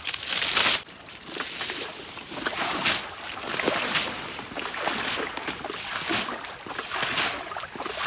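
Water splashing as a flooded ditch is bailed by hand with a small bucket: repeated scoop-and-throw splashes, roughly one a second.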